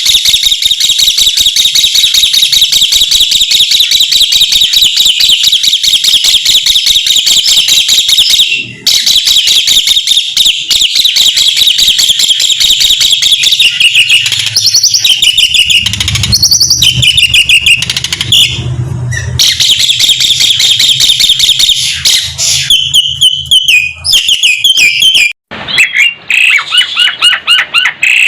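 Asian pied starling (jalak suren) singing loudly and excitedly: a long, rapid chattering song of fast repeated notes in varied phrases, broken by short pauses about a third of the way in and near the end. This is the bird's agitated song for calling out a rival.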